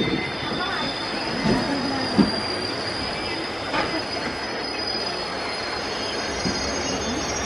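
Arriving passenger train hauled by a WAP-4 electric locomotive rolling slowly past, with a steady rumble and a thin, high, steady metallic wheel squeal over it. There is a single sharp knock about two seconds in.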